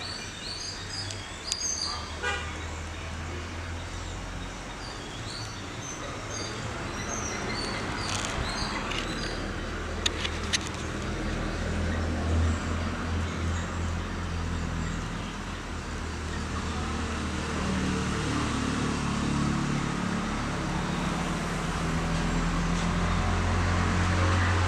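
Outdoor ambience: birds chirping over a steady low vehicle engine rumble, the rumble growing louder toward the end, with a couple of sharp clicks midway.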